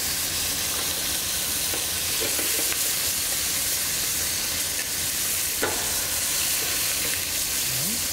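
Chicken hindquarters searing in hot oil in a sauté pan, a steady sizzle. This is the dry-heat browning stage before the braise.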